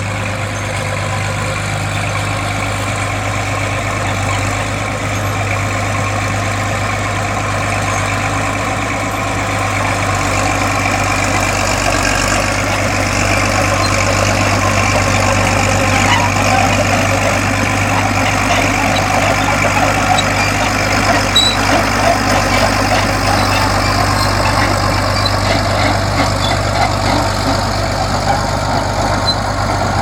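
Vintage crawler bulldozer's diesel engine running steadily with a constant deep drone as the machine works soil, getting somewhat louder about ten seconds in. There are scattered clanks from its steel tracks.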